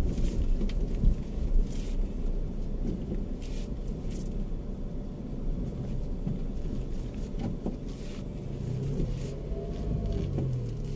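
A Mitsubishi car driving slowly, heard from inside the cabin: a steady low engine and road rumble with a few light knocks.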